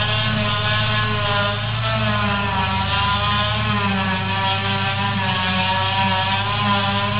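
Tractor engine running steadily under way, a loud hum whose pitch wavers gently up and down.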